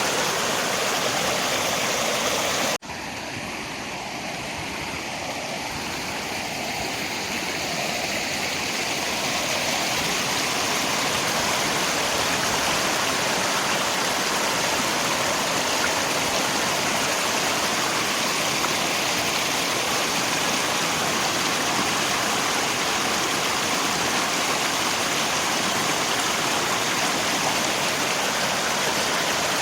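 Steady rushing of river water and rain. About three seconds in the sound cuts out for an instant, then comes back quieter and slowly builds back to full over several seconds.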